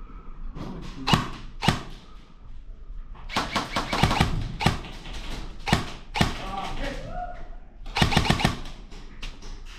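Airsoft guns firing: a couple of single shots, then a rapid burst, two more single shots and another short rapid burst near the end.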